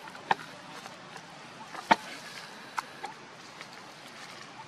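A few sharp cracks of twigs and a thin branch as a macaque swings and hangs from it, the loudest about two seconds in, over a steady outdoor hiss.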